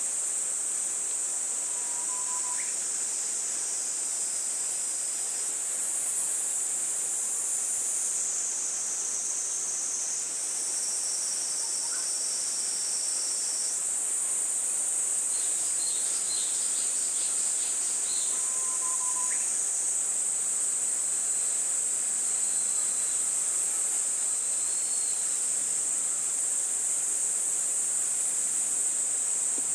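Insect chorus: a steady, shrill, high-pitched trilling from many insects, its layered pitches shifting now and then. Two faint short whistle-like notes sound twice.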